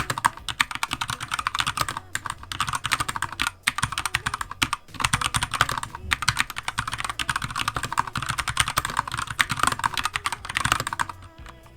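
Typing on a Keychron K2 Version 2 hot-swappable mechanical keyboard: rapid, continuous key clicks, with brief pauses about three and a half and five seconds in.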